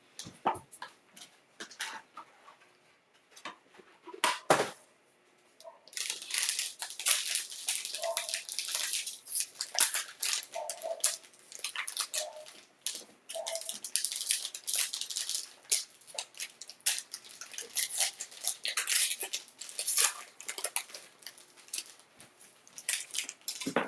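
Plastic wrapping on a trading-card box being torn and crinkled: scattered clicks and a sharp knock at first, then steady crackling from about six seconds in.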